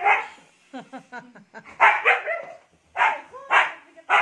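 Siberian husky vocalizing in excitement: a quick run of short yips about a second in, then several loud calls of about half a second each.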